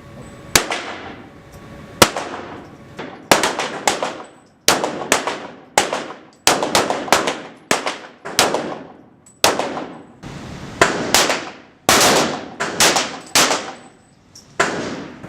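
Pistol gunfire from several shooters: about two dozen sharp shots at irregular spacing, sometimes a few in quick succession, each with an echoing tail.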